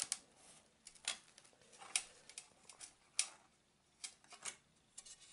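Faint ticks and light clinks of sheets of coloured art glass being shifted and handled, a handful of separate small clicks about a second apart.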